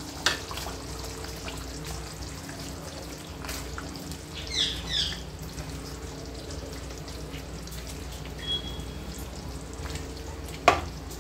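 Thick masala liver curry sizzling and bubbling in a non-stick kadai while it is stirred with a spatula, with occasional scrapes of the spatula against the pan and a sharp knock near the end. A steady low hum runs underneath.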